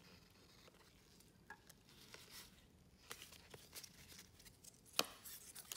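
Trading cards being flicked through and shuffled in gloved hands: faint scattered taps and card-on-card rustles, with one sharper click about five seconds in.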